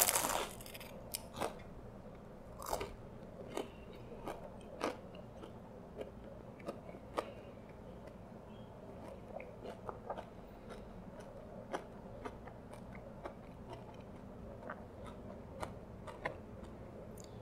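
A bite into a McDonald's apple pie, its crisp pastry crust crunching loudly right at the start, then close-up chewing with scattered small crunches and mouth clicks.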